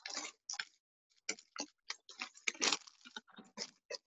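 Faint, irregular clicks and taps, about three or four a second.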